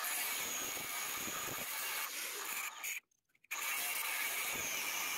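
Angle grinder with a cut-off wheel grinding through a rusted rivet on a leaf-spring shackle hanger bracket: a steady grinding whine. The sound drops out completely for about half a second three seconds in.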